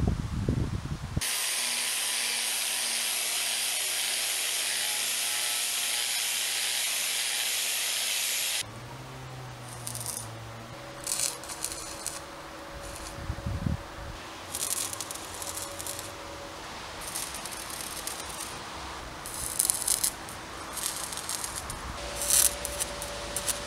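Electric arc welding on steel profile pipe. First a long, even hissing crackle of a continuous weld for about seven seconds, then a string of short bursts of crackle as tack welds are struck one after another, with a low knock or two in between.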